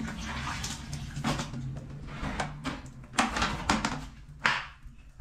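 Clothes being washed and wrung by hand in a plastic bucket of water: irregular sloshing and splashing as the wet cloth is squeezed and lifted out.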